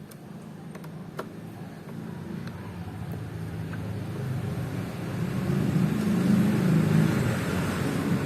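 A road vehicle passing, its engine and tyre noise growing steadily louder and peaking near the end, with a few faint clicks early on.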